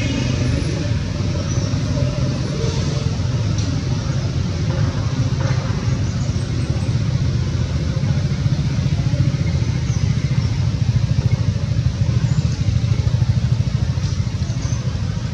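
A motor engine running steadily, a low fluttering rumble throughout.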